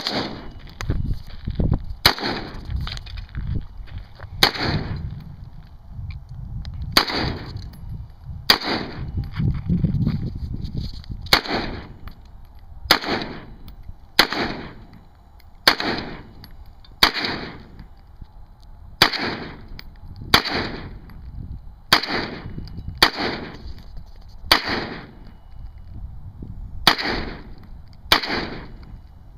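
AR-15 rifle firing single shots in steady semi-automatic succession, about twenty shots spaced one to two seconds apart.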